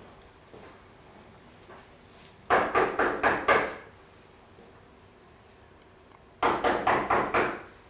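Two bouts of rapid, heavy banging on wood, about six blows each in just over a second, a few seconds apart.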